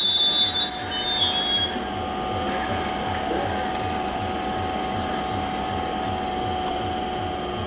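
Indian Railways EMU local train drawing to a halt: the brake and wheel squeal dies away in the first two seconds. The standing train's machinery then runs with a steady hum and a rapid low thumping, about three or four beats a second.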